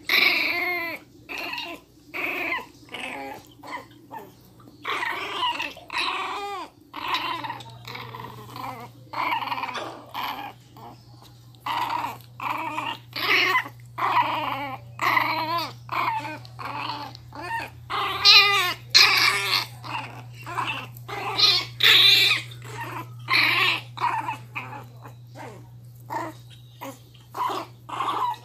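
Miniature pinscher puppy growling and yapping in a long run of short, pitched bursts, about two or three a second, the angry snarling of a small dog.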